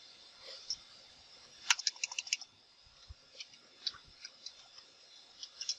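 Computer keyboard keystrokes: a quick run of about half a dozen keys around two seconds in, then scattered single key presses.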